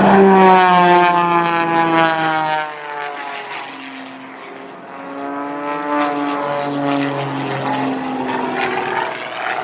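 Aerobatic race plane's six-cylinder Lycoming piston engine and propeller at full power. The pitch drops as it flies past in the first seconds, fades, then swells again about five seconds in as the plane turns back.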